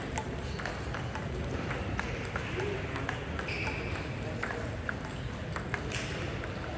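Table tennis ball clicking sharply and irregularly off bats and tables during rallies. Behind it is the steady hubbub of voices and play in a large hall full of tables.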